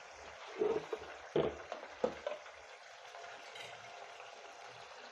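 A glass pan lid is lifted off a steel pan with a few light knocks and clinks in the first couple of seconds, then a soft, steady bubbling of methi (fenugreek-leaf) bhaji gravy simmering in the uncovered pan.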